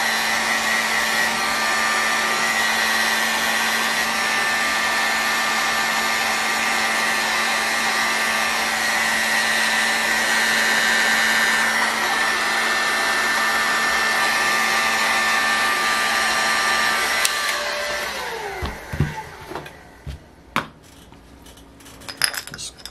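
Heat gun blowing steadily with a fixed hum and whine as it warms a model engine's crankcase so the bearing can slip in. About 17 seconds in it is switched off and winds down, followed by a few light metallic clicks and knocks as the crankshaft and case are handled.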